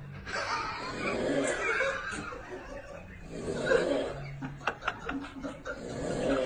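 Snoring in slow, repeated breaths, mixed with snickering, chuckling laughter.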